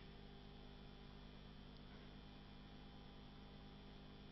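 Near silence: a faint steady electrical hum and hiss of room tone.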